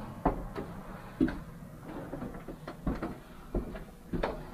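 Footsteps on old wooden stairs: irregular knocks and thumps, roughly one a second.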